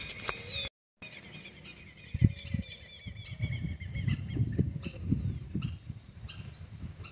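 Wild birds calling: many short high chirps, with one long falling whistle about halfway through, over an uneven low rumble.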